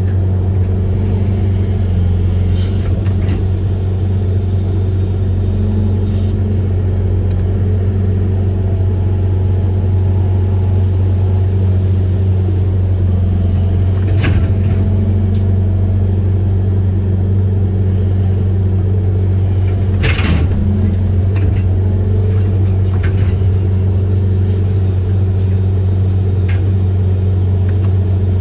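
Amphibious excavator's diesel engine running at a steady speed, a deep even drone, with a few brief sharp sounds from the working machine, the loudest about twenty seconds in.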